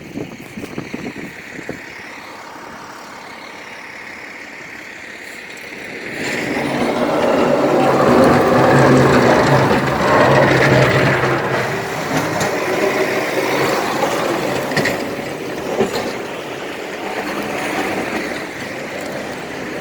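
A heavy vehicle's engine approaching and passing, swelling about six seconds in, loudest a few seconds later, then easing off over steady street noise.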